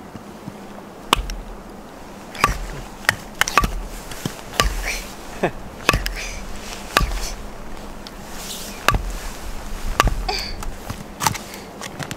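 A series of sharp clicks and knocks at uneven intervals, about one a second, several with a dull low thud beneath.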